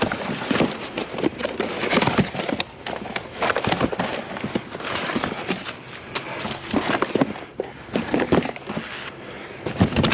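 Hands digging through a pile of scrap wire and metal, a dense, irregular clatter of small knocks, rattles and crackles as pieces are shifted and pulled out.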